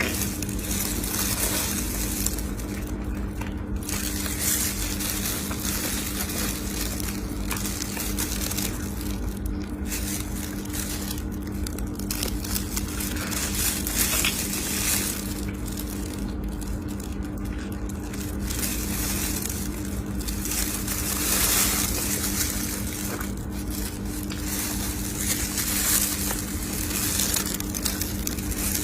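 Close-miked eating sounds: a person chewing and crunching stewed fish, with irregular bursts of mouth noise. A steady low electrical hum runs underneath.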